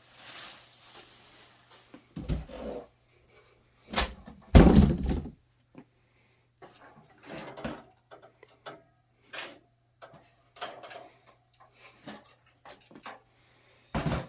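Cardboard box and foam packing being handled as a portable propane heater is pulled out: several heavy thumps, the loudest about four and a half seconds in, with scattered short clicks, scrapes and rustles between them.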